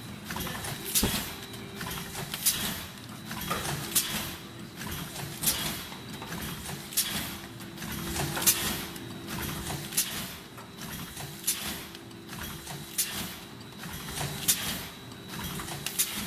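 Horizontal form-fill-seal stand-up pouch packing machine running. A sharp clack from its mechanism repeats about every second and a half, with lighter clicks between, over a steady hum.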